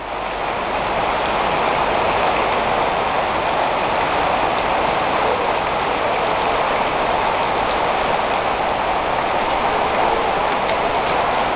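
Steady rain falling, an even hiss that rises over the first second and then holds level.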